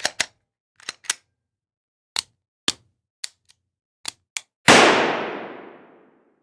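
Firearm sound effect: about ten short, sharp mechanical clicks, some in close pairs, over the first four and a half seconds, then one loud gunshot whose tail fades away over about a second and a half.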